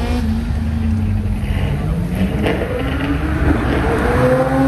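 Sports car engine revving hard as the car accelerates away, the pitch easing after a shift early on and climbing again in the last couple of seconds.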